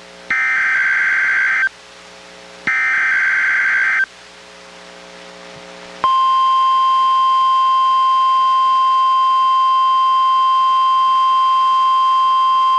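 Two buzzing bursts of a NOAA Weather Radio SAME digital header, each about a second and a half long with a short gap between, played through a Reecom R-1630 weather radio. Then, about six seconds in, the steady 1050 Hz NOAA weather radio warning alarm tone starts and holds, sent here as a weekly test.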